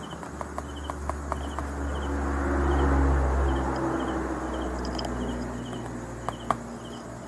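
Crickets chirping in the background, a short high chirp repeated every half second or so. A low hum swells and fades through the middle. A few light clicks come in the first two seconds and two more near the end as the metal rod and plastic tube are handled over a tub of mineral granules.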